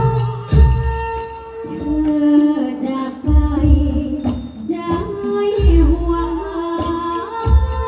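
A woman's voice singing a long, ornamented Thai likay melody through a stage PA system, over backing music with deep bass thumps every second or two.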